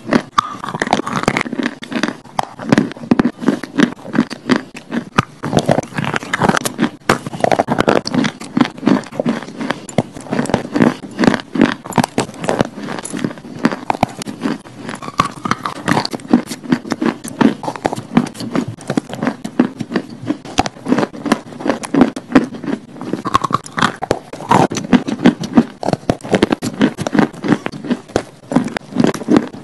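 Biting and chewing hard chunks of chalk close to the microphone: a dense, unbroken run of sharp crunches and crackles, several a second.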